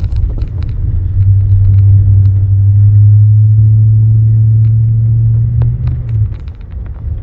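Low, steady drone of a car running, with scattered light clicks over it; the drone stops about six seconds in.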